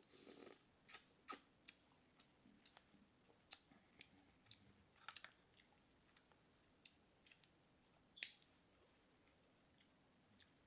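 Close-up mouth sounds of eating seafood: chewing and lip-smacking heard as scattered short, sharp clicks, with the loudest smack about eight seconds in.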